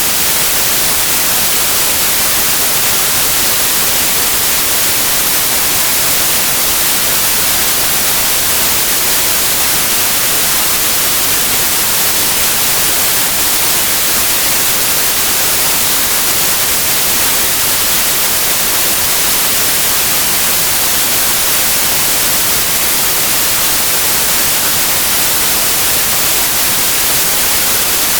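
Steady white noise: an even, unchanging hiss, strongest in the high frequencies, played as a sleep sound for babies.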